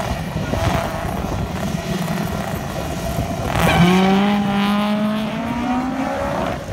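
Two drag-racing cars, a turbocharged Chevrolet Spark and a Honda CRX with a B20 two-litre four-cylinder, revving at the start line, then launching about halfway through. Their engine note climbs steadily in pitch as they pull away down the strip.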